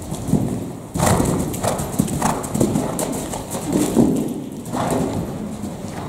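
Hoofbeats of a grey horse cantering on soft indoor-arena footing, dull thuds in the canter rhythm that grow louder about a second in as the horse comes closer. The loudest thud comes about four seconds in as it lands after a show jump.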